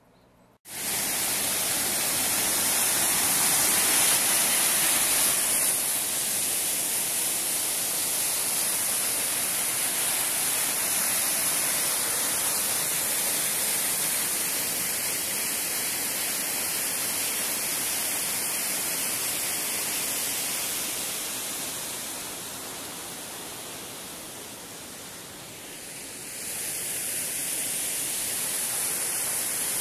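Rushing water of a waterfall cascading over rocks on a mountain stream: a steady, loud hiss that starts abruptly, fades down for a few seconds near the end, then comes back up.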